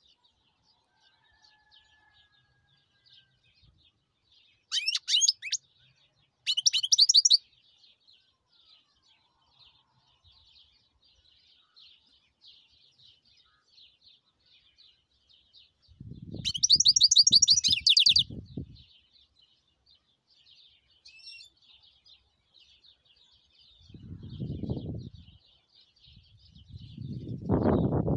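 European goldfinch singing: a steady soft twittering broken by three loud, rapid trilled phrases, about 5 and 7 seconds in and again around 17 seconds. Bursts of low rumble come in during the second half.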